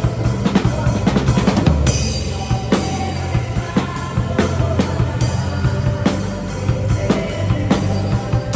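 Acoustic drum kit playing a steady worship-rock beat, picked up as room sound, over the band's sustained low bass notes.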